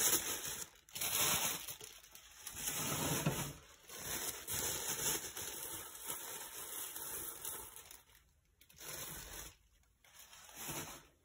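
Wrapping being rustled and torn open in uneven bursts with short pauses as a gift is unwrapped.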